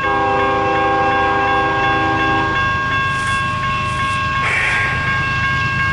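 A CN locomotive's air horn sounds one chord of several notes, held for about two and a half seconds before it cuts off, over the steady rumble of the approaching train.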